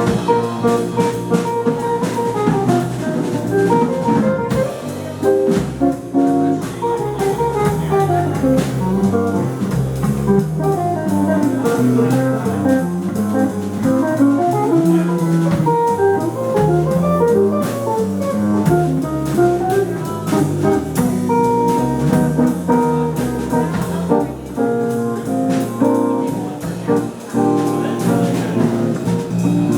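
Jazz quartet playing an instrumental passage, with melody lines moving over a steady accompaniment.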